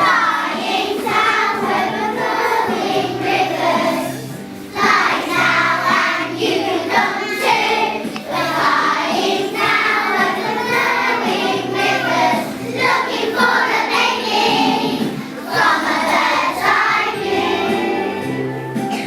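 A song with a group of voices singing together over an instrumental accompaniment, with a short break in the phrase just before five seconds in.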